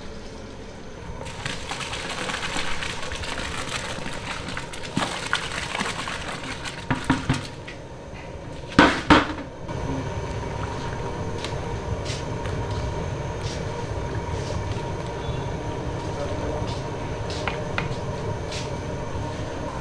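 Rice boiling in a large aluminium pot of water over a burner, a steady low rumble, with a long-handled wire skimmer stirring and clinking against the pot. Two louder short bursts of noise come about 7 and 9 seconds in.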